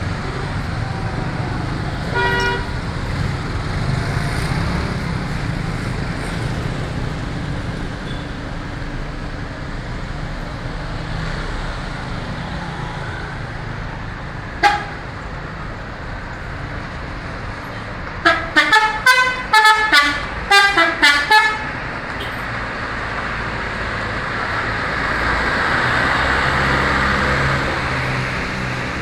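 Steady road traffic noise with a short horn toot about 2 seconds in and another about 15 seconds in; about 18 seconds in an Indonesian bus's 'telolet' musical air horn plays a quick tune of short notes at changing pitches for about three and a half seconds.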